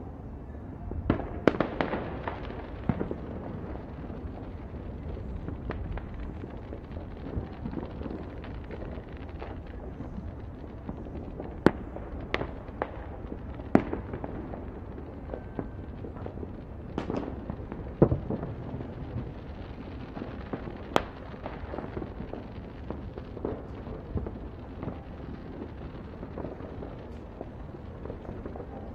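New Year's Eve fireworks and firecrackers going off here and there across the city, single sharp bangs every few seconds with a small cluster near the start, over a steady low rumble.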